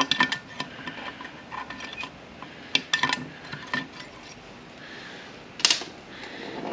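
Small steel parts of a manual transmission shift tower clicking and clinking as they are handled on the bench, with a short, louder rattle about five and a half seconds in.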